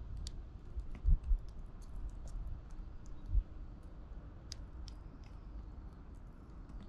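Eurasian tree sparrows pecking at mixed seed in a wooden feeding tray: scattered sharp clicks of beaks on seed, with a few dull knocks about a second in and again at about three and a half seconds.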